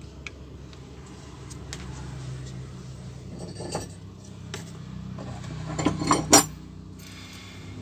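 Metal hand tools being put down and picked up on a workbench: a few light clicks, then a quick burst of metallic clinks and clatter about six seconds in, the loudest moment.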